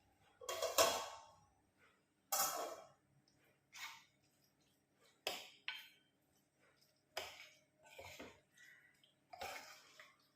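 Kitchen handling noises: a string of short clatters and knocks, like dishes and utensils being moved and set down, coming irregularly about once a second or two over a faint steady hum.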